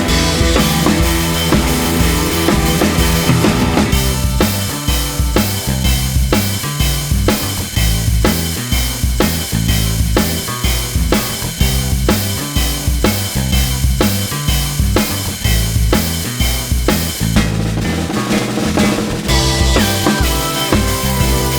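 Background music with a steady drum-kit beat and a stepping bass line; the bright top of the mix drops away about four seconds in and comes back near the end.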